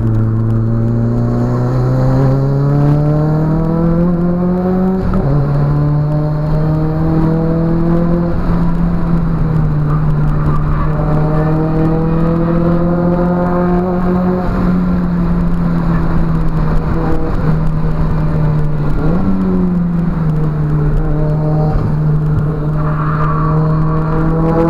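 Nissan 200SX S13's turbocharged CA18DET 1.8-litre inline-four with a custom 3-inch exhaust pulling hard, heard from inside the cabin. The revs climb, drop sharply at an upshift about five seconds in, then hold and rise again under load.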